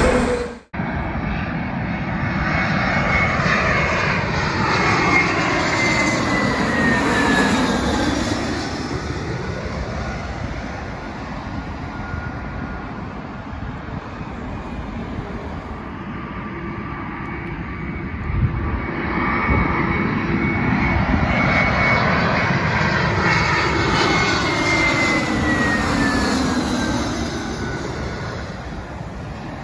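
Jet airliners on final approach passing low overhead, twice: each pass is a loud engine whine over a rushing noise, falling in pitch as the aircraft goes by. A brief dropout just after the start.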